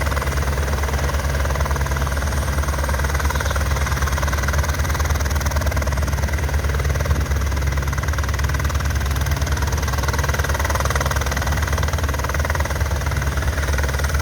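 Helicopter running close by: the steady, fast chop of the rotor blades over the engine's whine, loud and unchanging throughout.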